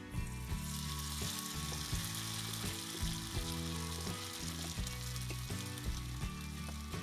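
Tofu-and-vegetable pancake batter sizzling in hot frying oil in a pan, the sizzle starting as the batter goes in. Background music with a steady beat plays underneath.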